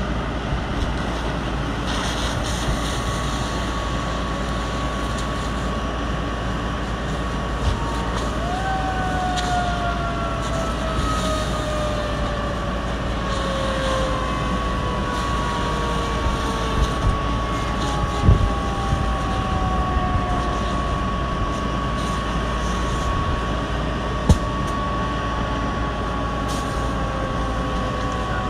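Steady rushing roar of a fire hose's water spray on a burning pickup, the fire hissing to steam, with a steady machine whine. From about eight seconds in, two more whines slowly fall in pitch. A few sharp pops come from the fire, the loudest about 18 and 24 seconds in.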